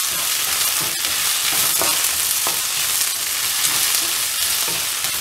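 Sliced onions with curry leaves, green chilli and coriander sizzling in oil in a kadai, being sautéed with a wooden spatula that scrapes and knocks on the pan now and then.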